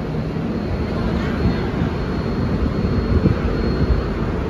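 Express train running along the track: a steady rumble of wheels on rails mixed with rushing air, with a few sharp knocks from the wheels in the second half.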